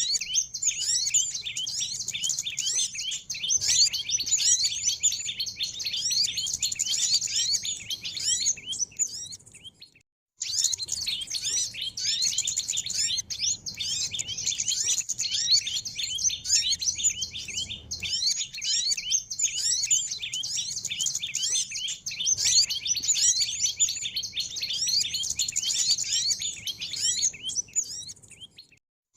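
A dense chorus of many small birds chirping and twittering in rapid, overlapping high-pitched calls: a small-bird lure recording. It cuts out for a moment about ten seconds in and again just before the end, then picks up again.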